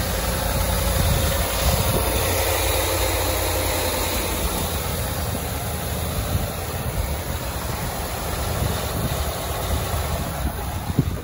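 2017 Ford F-150 pickup engine idling steadily, heard from over the open engine bay. A sharp knock sounds near the end.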